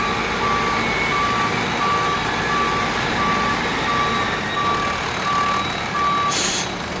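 Garbage truck's backup alarm beeping at one steady pitch, about three beeps every two seconds, stopping shortly before the end, over the diesel engine running.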